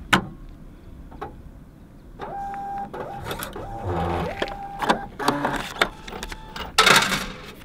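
Pay-and-display parking machine printing a ticket: a click, then its printer motor whirs for about three and a half seconds in stepped, changing tones with clicks, and a short loud rasp near the end.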